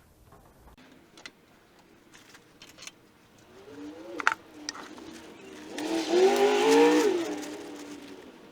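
2001 Acura MDX's 3.5-litre V6 engine revved: a few clicks, a short rise about four seconds in, then a louder rev rising and falling for about a second and a half before dropping back.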